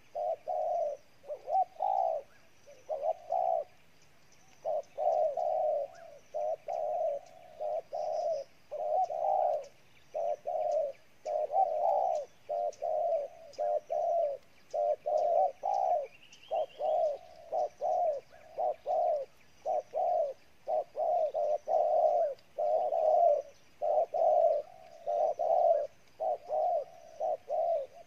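Spotted doves cooing in a long, fierce, unbroken run of bowing coos (the "gù"), about two low notes a second.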